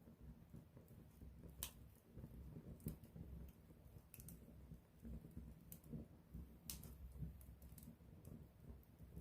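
Wood campfire crackling faintly, with a handful of sharp pops at irregular moments over a low, steady background of the burning fire.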